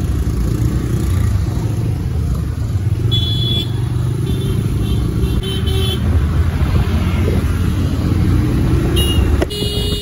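Motorcycle riding through city traffic: a steady low rumble of wind and engine on the onboard microphone. Short horn beeps from the traffic sound about three seconds in, several more between four and six seconds, and again near the end.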